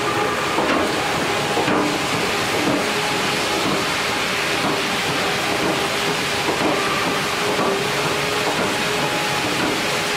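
Sawmill log-handling machinery running: chain log conveyors moving logs, a steady mechanical hiss and rumble with faint knocks.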